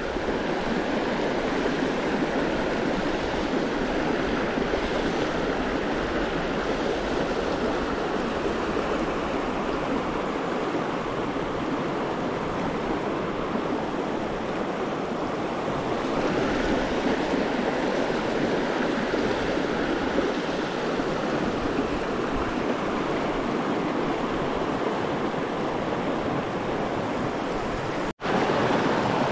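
Shallow river water rushing and splashing over rocks in a riffle, a steady noise; it cuts out for an instant near the end.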